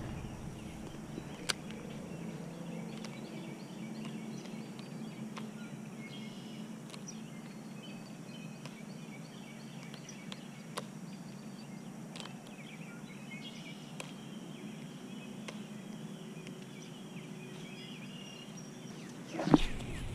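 Outdoor ambience with birds singing faintly in short repeated chirps over a steady low hum, broken by a few sharp ticks. Near the end comes a loud rustling bump from the camera being handled.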